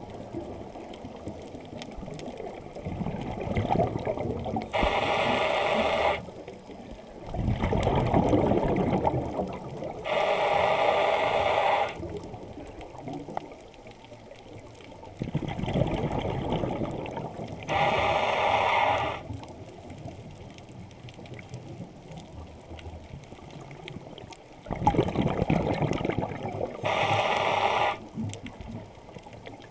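Scuba regulator breathing heard underwater through the camera housing: a hissing inhale through the demand valve, then a rush of bubbling as the exhaled air vents. The cycle repeats about four times, with quieter pauses between breaths.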